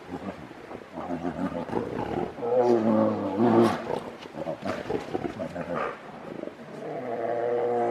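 Grizzly bears calling during a fight: a long, low call about two and a half seconds in, and another building near the end, with scattered clicks between.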